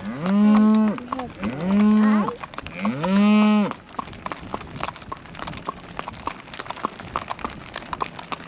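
Cattle bawling: three long calls, each about a second long, one after another. After them come many hooves of cattle and horses clicking on the asphalt road.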